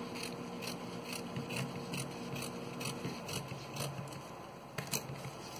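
Scissors cutting through satin fabric: a steady run of faint snips, about three a second, with one sharper click near the end.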